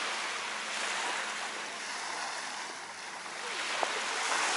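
Small waves washing onto the shore, a steady hiss of surf that swells and eases.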